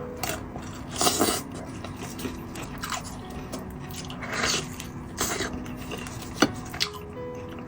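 Close-miked eating: bites and chewing of food, with a few louder crunchy bites about a second in and again around four and five seconds in, and a sharp click near the end.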